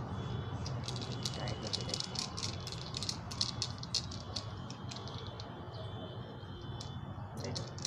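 Quick small plastic clicks and rattles as a flexible-leg tripod is handled and its phone clamp is twisted tight onto the tripod head. The clicks come thickest in the first half and thin out later, over a steady low hum.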